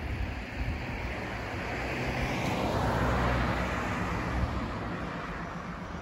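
A car passing on the road, its tyre and engine noise swelling to a peak about three seconds in and then fading away.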